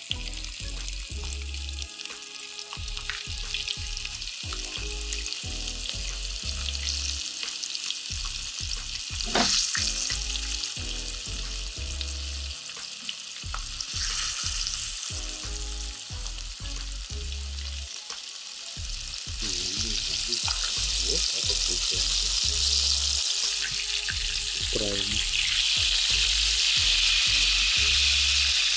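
Small flour-coated dace sizzling as they fry in hot oil in a frying pan. The sizzle grows louder in steps as more fish are laid in, with one sharp tap about nine seconds in.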